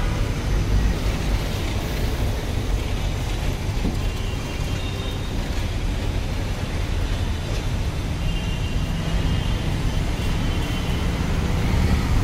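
Steady traffic rumble from passing road vehicles.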